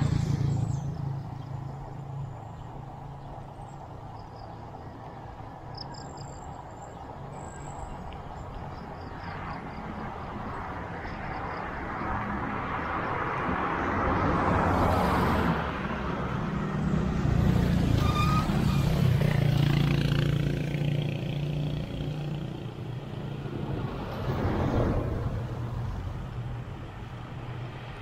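Road traffic: motor vehicle engines running along the road, growing louder as vehicles pass about halfway through and again briefly near the end.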